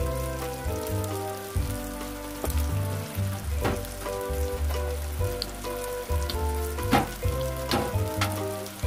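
Tofu cubes bubbling as they simmer in soy-sauce liquid in a pot, under background music with a bassline. A few sharp clicks stand out in the second half.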